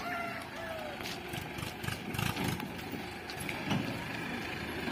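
A diesel tractor engine running at a distance as it tows a loaded trolley, uneven in level with a few short knocks.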